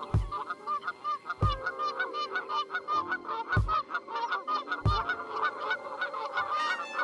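A flock of Canada geese honking and calling over one another in quick, overlapping short calls. Four dull low thumps fall irregularly among the calls.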